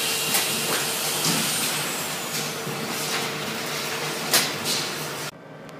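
Steady workshop machinery noise: an even hiss and hum with a faint steady tone and a few light clicks. It cuts off abruptly about five seconds in.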